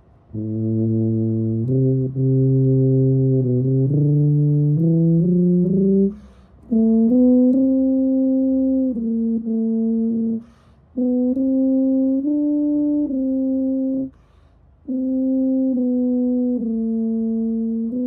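Tuba played solo, improvising: a first phrase of low notes climbing step by step, then longer held notes higher up, in four phrases broken by short pauses for breath.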